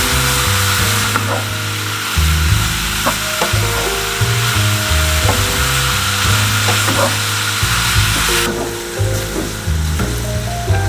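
Diced pork belly sizzling in a hot nonstick pan, stirred and scraped with a wooden spatula, with a few light knocks. The sizzle drops off sharply about eight and a half seconds in. Background music plays underneath.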